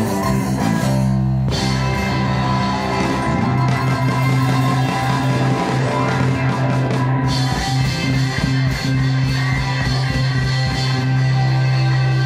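Rockabilly band playing live with no vocals: a hollow-body electric guitar over bass and drums, with a low note held from a few seconds in.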